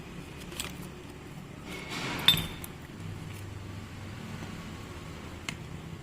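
A few sharp metallic clicks and one ringing clink, about two seconds in, of small metal parts or tools being handled over a steady low hum.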